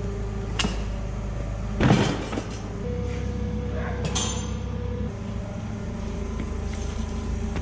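A few sharp metal clanks and knocks from heavy car parts being handled, the loudest about two seconds in. Under them run a steady low hum and background music.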